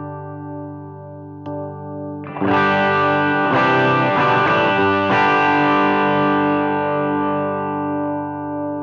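Electric guitar played through a Kardian Serotonin overdrive pedal, a Tube Screamer-style overdrive voiced warm with smooth mids. A held chord fades, then a new chord is strummed about two seconds in, with a quick run of notes, and is left ringing and slowly fading.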